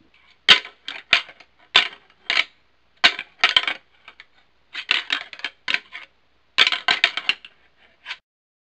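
Whitetail deer antler rattling: antlers clashed and ground together in several bursts of rapid, sharp clacks separated by short pauses, imitating two bucks sparring.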